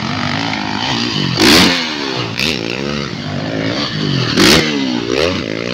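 Motocross dirt bike engine revving up and down over and over as the bike rides by close. Two short, loud blasts stand out, about a second and a half in and again near four and a half seconds.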